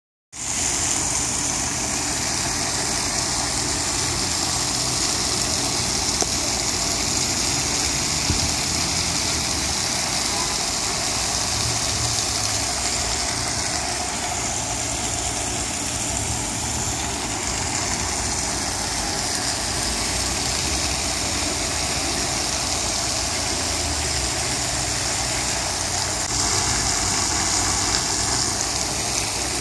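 Steady outdoor street ambience: a low rumble of idling engines under a constant high hiss, with no sudden events.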